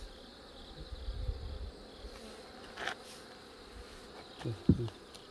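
Honeybees buzzing steadily around an opened hive, with a brief louder buzz about three-quarters of the way through.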